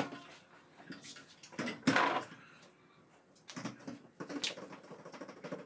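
A few short knocks and clatters, the loudest about two seconds in.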